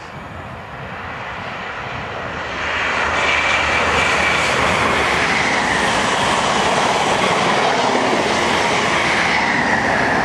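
A train running through at speed: a rushing noise of wheels on rails builds over the first couple of seconds, then holds loud and steady, with a faint high whine running through it.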